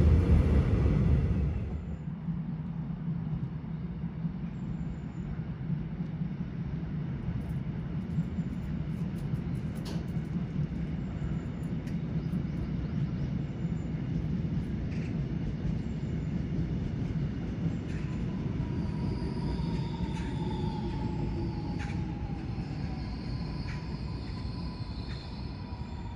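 Line 1 electric multiple-unit train rumbling past close by and dying away about two seconds in, leaving a steady low hum. In the last third a slowly falling whine rises over the hum as another electric train slows into the far platform.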